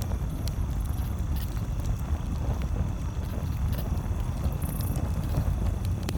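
Campfire crackling, with scattered sharp pops at irregular intervals over a steady low rumble.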